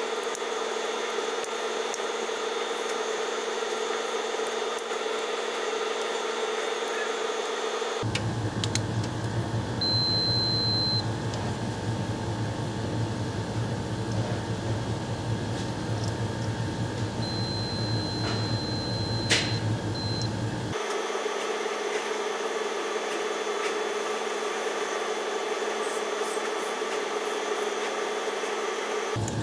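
A multimeter's high continuity beep sounds briefly about ten seconds in, then again for a couple of seconds a little later, as its probes touch the compressor's winding terminals. The beep signals that the winding is unbroken. Under it runs a steady background hum whose pitch shifts abruptly twice.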